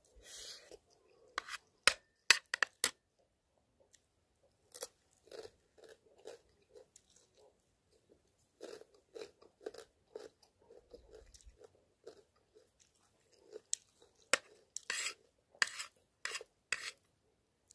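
Close-up chewing of a mouthful of rice, a soft crunching about twice a second, with a metal spoon clicking sharply against the plate a few times about two seconds in and again in a cluster near the end.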